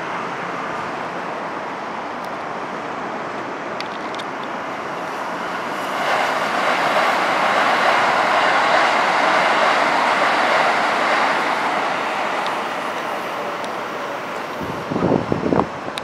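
Keikyu New 1000 series aluminium-bodied electric train passing over a level crossing: a steady rush of wheels and running gear that swells about six seconds in, stays loud for several seconds, then fades. Near the end, gusts of wind buffet the microphone.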